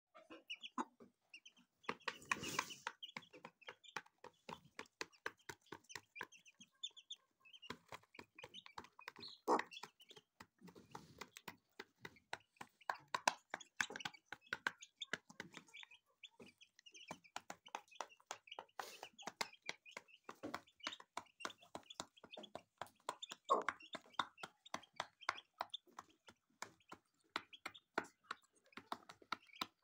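Aseel chicks peeping in short high chirps while beaks tap rapidly at grain in a plastic feeder. An adult hen clucks now and then.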